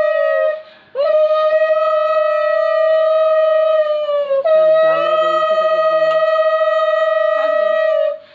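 Conch shell (shankha) blown in long, steady, single-pitched blasts: one ends in the first second, then two more of about three to four seconds each, the pitch dipping slightly as each blast ends.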